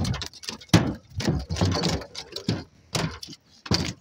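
A freshly caught gafftopsail catfish flopping on a boat's plywood floor: irregular wet slaps and thumps, several a second, with a short pause near the end.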